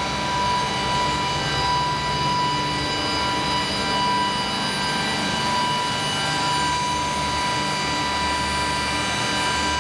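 Electric machine running steadily with a constant hum and a high steady whine, running smoothly after installation.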